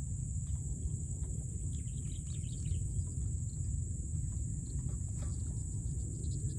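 Outdoor marsh ambience: a steady low wind rumble on the microphone, a steady high insect drone, and scattered faint bird chirps.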